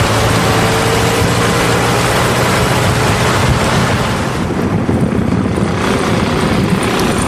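A car driving along at speed: steady engine hum with road and air rush. About four and a half seconds in, the high rushing part drops away, leaving the lower engine and tyre rumble.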